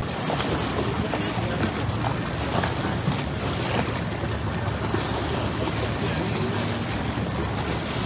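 A small boat under way on a canal: a steady rush of water and wind noise on the microphone, with faint voices.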